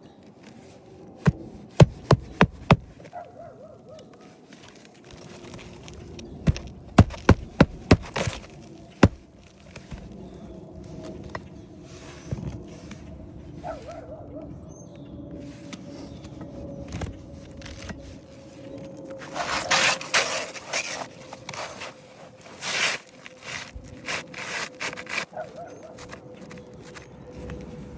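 Hand-tool work on wood: two quick runs of sharp knocks, about five and then six strikes, followed later by bursts of scraping.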